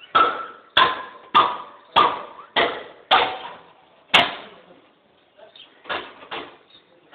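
A motorcycle lying on its side being struck hard again and again, each blow a sharp crack with a brief metallic ring. Seven blows come in quick succession, about one every 0.6 seconds, then after a pause two weaker ones.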